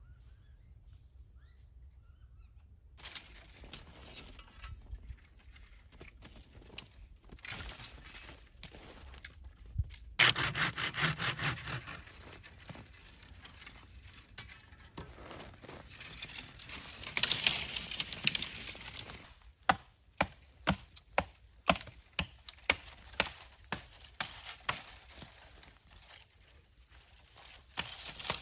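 Icy crust on frozen snow crunching and cracking, ending in a series of crunching footsteps at about one a second. The crust formed when rain and a thaw were followed by a hard freeze.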